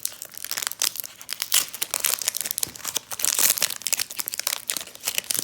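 Foil Pokémon booster-pack wrapper crinkling and being torn open by hand, a dense run of irregular crackles.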